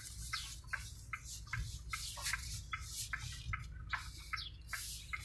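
Inside a Chery Tiggo 7's cabin: a light, regular ticking about three times a second over a low, steady hum from the car.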